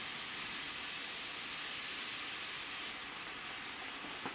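Milk and flour sauce bubbling in a pan over medium gas heat: a steady, even sizzling hiss that eases slightly about three seconds in.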